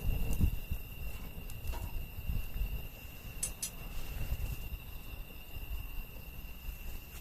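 Wood fire burning with a low rumble and a few sharp crackles, two close together about three and a half seconds in, over a steady high-pitched insect trill.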